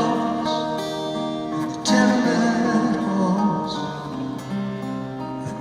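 Live acoustic-guitar-led music with sustained chords, a fresh strum about two seconds in.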